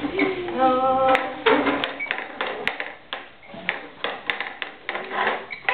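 A short voice near the start, then a run of irregular sharp taps or claps, several a second.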